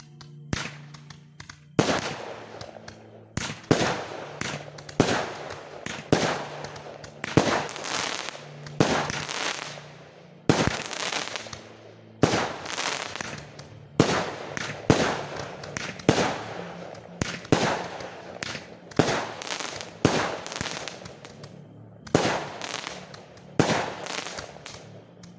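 Aerial fireworks bursting one after another, a sharp bang roughly every second, each one trailing off before the next. The bangs begin about two seconds in and keep a fairly regular pace.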